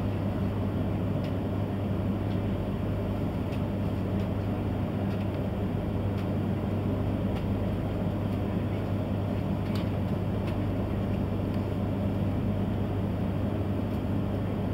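Steady low hum inside an E3-series Shinkansen car while the train stands at the platform: its onboard electrical and air-conditioning equipment running, with a couple of faint clicks.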